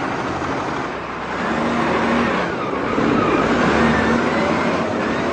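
A motor vehicle's engine running on a snowy street, growing louder about a second and a half in, with a pitch that dips and then rises near the middle.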